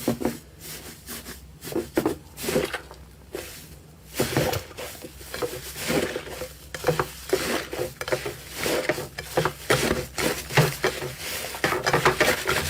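Slime being squeezed and pressed by hand: a run of small sticky clicks and squelches, sparser at first and busier and louder from about four seconds in.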